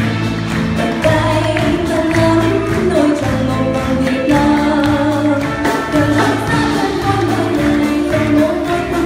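A woman sings a Vietnamese song into a microphone, backed by a small band with trombone, trumpet and saxophone over a steady beat.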